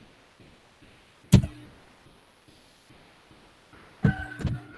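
Sharp knocks or thumps: one loud one about a second in, then a quick cluster of three or four near the end, each with a brief ringing tail.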